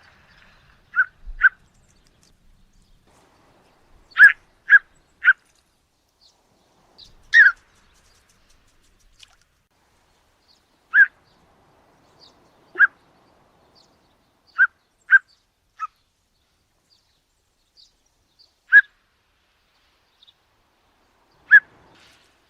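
A shorebird of the plover family gives short, sharp call notes, singly or in quick runs of two or three, with pauses of a few seconds between them.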